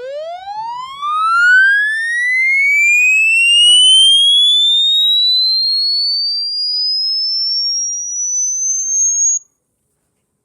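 Electronic tone sweeping steadily upward in pitch, from a low hum to a piercing high whine over about nine seconds, then cutting off suddenly.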